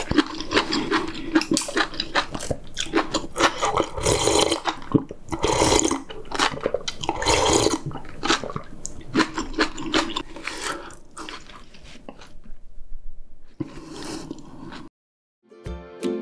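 Close-miked eating sounds: wet chewing, smacking and slurping of kimchi-stew broth, full of small clicks. They thin out after about twelve seconds, break into a moment of silence, and music starts right at the end.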